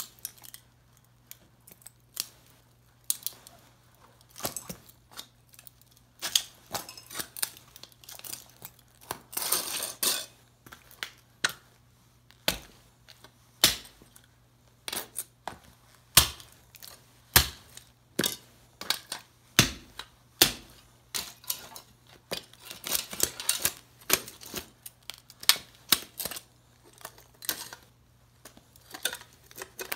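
Heavy boots stamping on and grinding the broken parts of an old tube radio, its metal loudspeaker frame among them, on a concrete floor: a string of sharp crunches, clicks and scrapes of metal and plastic, with longer grinding crunches about ten seconds in and again around twenty-three seconds. A faint steady low hum runs underneath.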